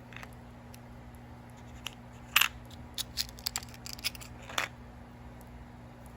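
Small metal charms and their packaging being handled, giving scattered light clicks and taps, the loudest about two and a half seconds in and again near the middle, over a steady low hum.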